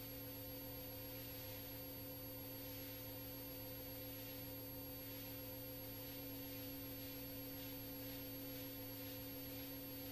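Steady electrical hum of several constant tones over a faint hiss on the aircraft's intercom and radio audio line, with no one transmitting.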